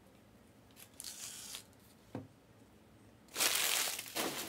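Foil trading-card pack wrappers crinkling and rustling as a stack of packs is handled: a short rustle about a second in, a single tap a little later, and a louder, longer rustle from about three seconds in.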